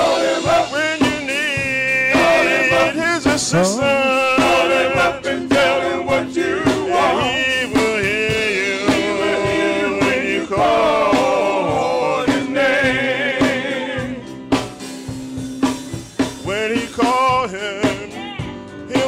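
Male gospel vocal group singing, the voices holding long wavering notes, backed by a drum kit and keyboard.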